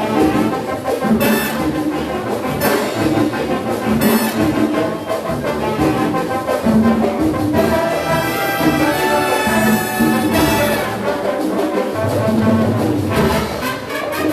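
Latin big band playing, with the brass section of trumpets and trombones leading over a steady rhythm; partway through the horns hold a long chord.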